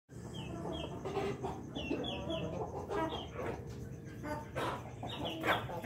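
Chickens clucking: an Ayam Ketawa rooster and Bangkok game hens. Short, high, falling chirps repeat through it in twos and threes.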